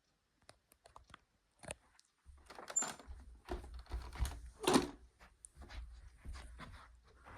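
Irregular clicks and knocks, sparse at first and then thicker and louder from about two seconds in, as of something being handled, with no motor running.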